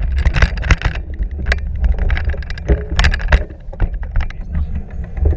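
Mountain bike on a dirt trail heard from a bike-mounted camera: heavy wind rumble on the microphone and the bike's tyres and frame rattling over the ground. The dense rattle thins out after about a second, leaving scattered sharp knocks and clicks.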